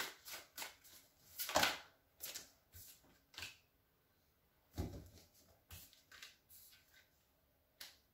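A tarot deck shuffled by hand: a quick run of sharp papery flicks and snaps for about three and a half seconds. After a short pause come a soft thud about five seconds in and a few light taps as cards are laid on the desk.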